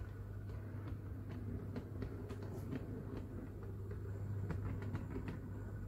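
HO-scale model diesel locomotive running slowly along the layout track: a steady low motor hum with scattered light clicks as its wheels cross rail joints and points.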